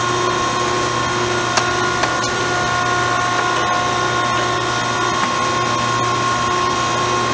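Hydraulic pump motor of a Challenge Champion 305 MB paper cutter running, a steady hum with a whine, with a few light clicks.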